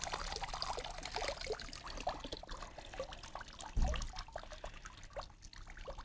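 Water draining out of an Aiper cordless robotic pool cleaner held over the pool, trickling and dripping back into the water and thinning out. A dull thump a little before four seconds in as the robot is set down on the pool's edge.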